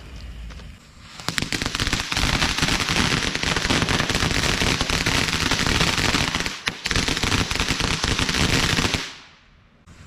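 A string of firecrackers going off in a dense, rapid run of bangs for about eight seconds, with a brief gap near the end, then dying away.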